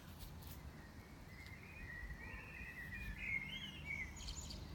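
Faint bird song: a run of high, wavering chirps and warbles starting about a second and a half in, over a low steady background rumble.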